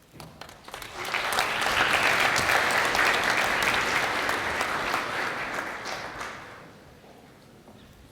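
Audience applauding, swelling up about a second in and dying away after about six seconds.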